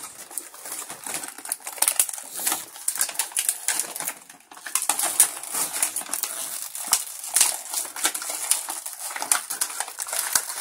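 Clear plastic toy packaging crinkling and crackling as it is squeezed and pulled at by hand, a dense run of small crackles with a short pause about four and a half seconds in.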